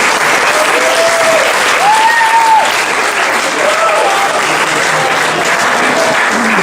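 Audience applauding, a dense steady clapping with a few voices calling out over it.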